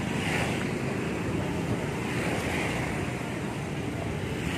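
Steady outdoor roadside noise: an even rushing with a low rumble and no distinct events.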